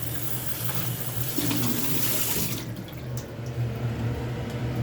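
Water running from a kitchen tap, shut off abruptly about two and a half seconds in, with a steady low hum underneath and a few faint clicks after.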